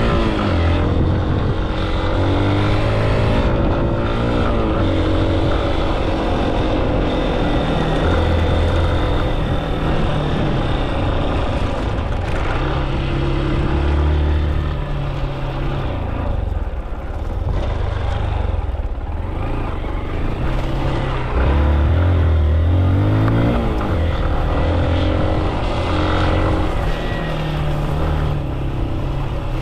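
Vehicle engine running continuously, its pitch rising and falling repeatedly as it speeds up and slows down.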